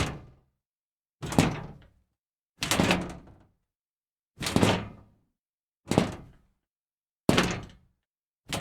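A series of separate sharp impacts, six in all, about one every second and a half, each dying away within about half a second, with dead silence between them.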